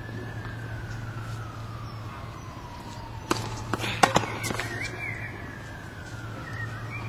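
A siren wailing, its pitch slowly rising and falling over several seconds. A tennis ball is struck with sharp pops about three and four seconds in, the loudest sounds.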